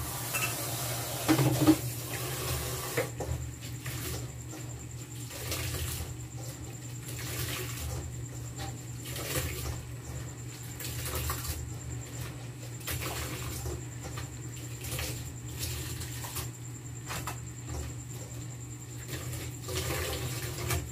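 Hands kneading and squeezing wet grated coconut in a metal basin, with irregular squelches and liquid splashing and dripping back into the basin as the coconut milk is pressed out. A steady low hum runs underneath.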